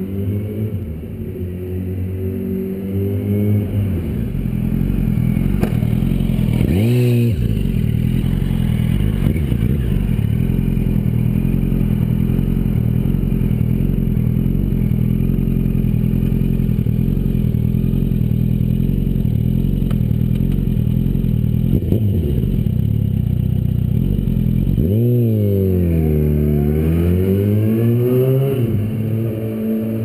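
Yamaha YZF-R1 inline-four sportbike engine running. It gives a quick rev about seven seconds in, then holds steady revs for a long stretch. Near the end the pitch dips and climbs back up.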